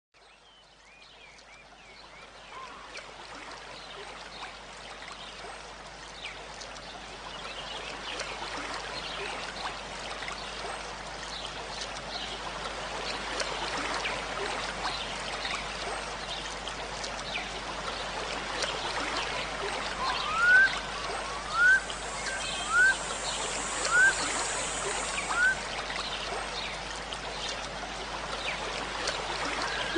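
Steady running water like a small stream, swelling gradually over the first several seconds, with a bird giving five short rising chirps a little over a second apart about two-thirds of the way through.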